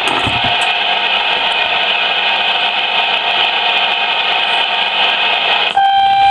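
CB radio speaker carrying a steady, loud hiss of static from a keyed-up transmission. Near the end the hiss cuts off and a steady electronic beep tone takes its place.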